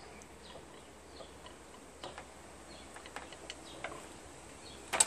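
Razor blade cutting through the plastic tabs of a pet-door frame: faint scattered ticks and scrapes, then a quick burst of sharp plastic clicks near the end.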